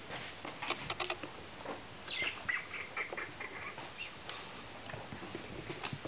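Smooth Collie puppies at four to five weeks old: sharp little clicks of paws and claws, then a run of high, thin squeaks and whines about two seconds in, one sliding down in pitch, with a few more near four seconds.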